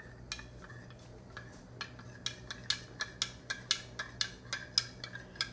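Metal spoon clinking against the inside of a glass measuring cup while stirring a rice-flour mixture: light, sharp clicks, a few at first, then a quick, even run of about four or five a second from a couple of seconds in.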